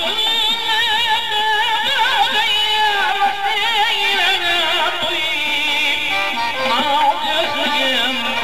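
Live Uzbek music: a singer's melody with heavy, wavering vibrato over steadier instrumental lines.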